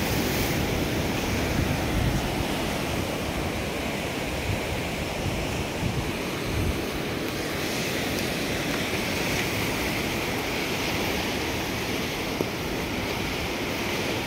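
Surf breaking and washing over shoreline rocks, a steady rush of sea noise, with wind rumbling on the microphone.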